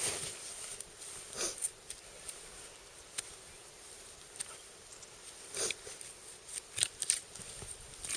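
A few short, soft scraping and rustling sounds, spaced irregularly, as a knife works through a deer carcass.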